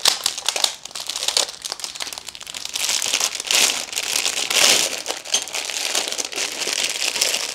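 Packaging crinkling and rustling as a box of standing-desk frame parts is unpacked: a run of crackles, with louder rustles about halfway through.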